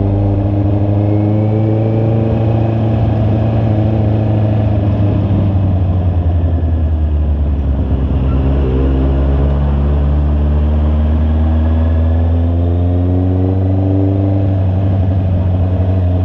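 Honda CB650R's inline-four engine running steadily on the move, its pitch dipping slightly and recovering about halfway through.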